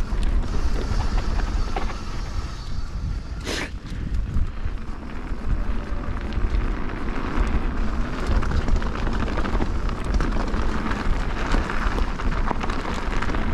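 Enduro mountain bike ridden down a dirt trail, heard from an action camera: wind buffeting the microphone over tyre rumble and the rattle and clicking of the bike. There is a sharp knock about three and a half seconds in.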